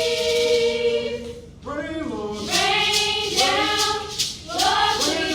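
A school children's choir singing live. A long held chord breaks off about a second and a half in, and a new sung phrase starts with a regular beat of sharp hits under the voices.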